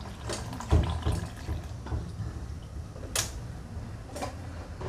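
Scattered clicks and knocks of kitchen items being handled as water is weighed into a plastic bowl on a kitchen scale: a heavier thud under a second in and a sharp click about three seconds in, over a low steady hum.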